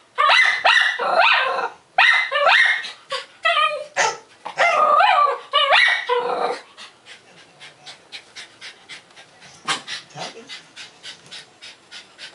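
Dogs barking in rapid, excited volleys: a Maltese going nuts at a dog barking in a video played through computer speakers. The barking stops about six and a half seconds in, with one more call a few seconds later, leaving faint short sounds at about three a second.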